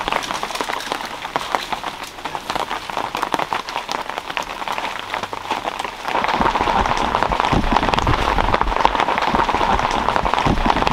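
Steady rain falling, a dense patter of drops that grows louder about six seconds in.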